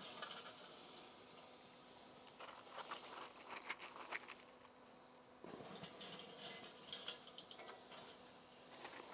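Faint rustling and scattered light clicks of water-soaked birch wood chips being picked by hand from a steel tray and dropped into a charcoal kettle grill.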